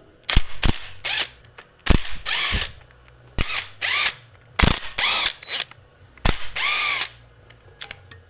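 Power tool, likely used to unbolt engine parts, run in about six short bursts that each spin up and wind down in pitch, with sharp clicks between them.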